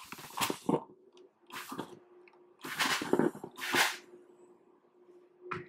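Steam iron pressing a folded fabric edge: four short bursts of hissing steam, over a steady low hum, and a short click near the end.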